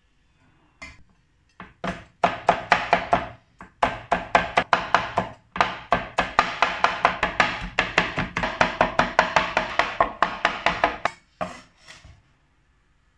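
Chinese cleaver chopping garlic on a wooden cutting board in fast runs of about five chops a second, with short pauses, mincing it fine. Near the end, a few scrapes as the blade gathers the minced garlic off the board.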